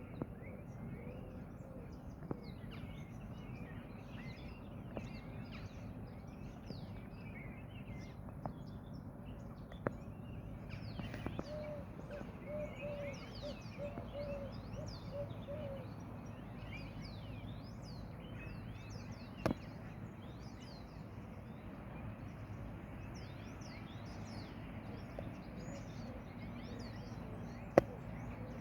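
Many small songbirds chirping and twittering, with a run of about nine short, evenly spaced low notes near the middle, over a steady low background rumble. A few sharp clicks stand out, the loudest near the end.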